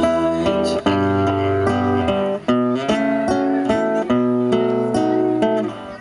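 Acoustic guitar playing an instrumental passage, its picked notes and chords changing every half second or so.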